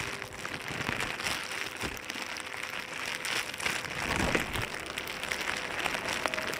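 A small pile of dry needles and twigs burning in an open fire, a dense crackle of flames with many small pops.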